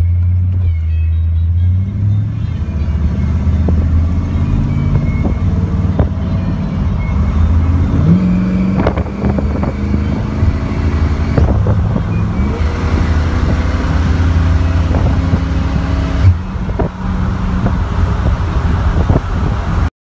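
A 327 V8 with a four-barrel carburettor and dual Flowmaster mufflers pulls the car along, heard from inside the cabin. The engine note rises as it accelerates about eight seconds in and again about twelve seconds in. A few short knocks and rattles come through, the sharpest about sixteen seconds in.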